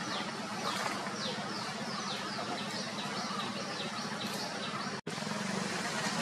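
A bird calling a quick series of short falling whistles, about two a second, over a steady low engine hum and a constant background hiss. The sound cuts out for an instant about five seconds in.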